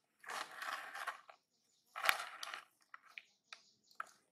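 Plastic snack packet crinkling in two bursts as it is handled, followed by a few short sharp crackles.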